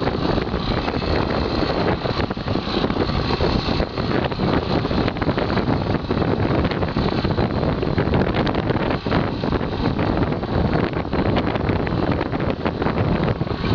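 Strong wind buffeting the microphone: a loud, continuous rumbling rush that flutters constantly without letting up.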